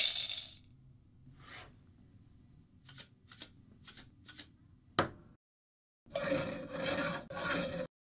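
Home-made foley for mashing in a stone molcajete: two long gritty rasping strokes of the pestle near the end. Before them comes a loud clink at the very start, a few light ticks, and a sharp click about five seconds in.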